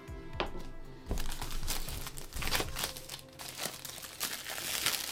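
Clear plastic wrapping crinkling and rustling, with sharp clicks and knocks from a cardboard box being handled, starting about a second in. Soft background music with steady tones underneath.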